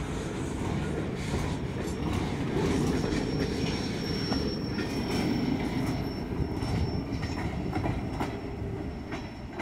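Empty centerbeam flatcars of a Norfolk Southern freight train rolling past, steel wheels clicking over the rail joints, with a thin high wheel squeal held from about two seconds in. The sound eases off near the end as the last cars move away.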